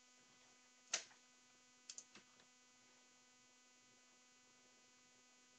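Near silence with a faint steady electrical hum, broken by a short click about a second in and a few fainter clicks around two seconds.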